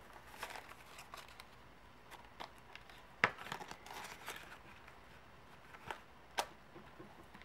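Paper cash envelopes and bills being handled, rustling softly, with a couple of sharp clicks about three and about six seconds in.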